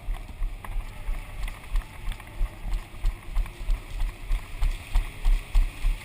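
Footsteps of a player walking or jogging, heard as regular low thuds about three a second, with light clicks of gear. The thuds grow stronger in the second half.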